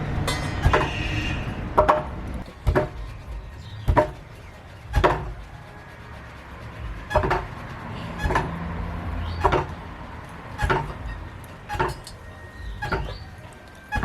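A series of light knocks on a wooden surface, about one a second, from hand work at a kitchen board, over a faint low hum.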